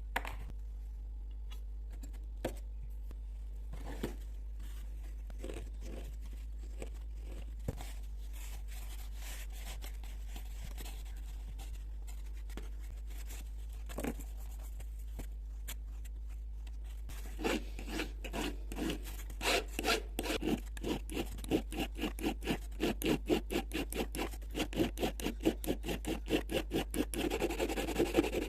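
A few scattered light clicks and taps, then, from about two-thirds of the way through, quick rhythmic back-and-forth rubbing strokes, about three a second, of a carburetor part being worked by hand with an abrasive. A steady low hum runs underneath.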